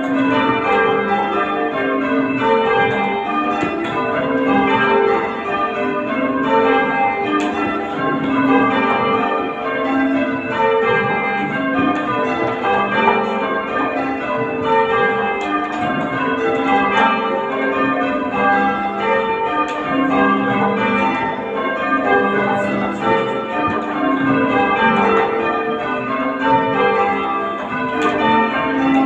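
Church tower bells being change-rung: a ring of bells swung full circle, striking one after another in a constantly changing order, the overlapping strikes and their hum running on without a break.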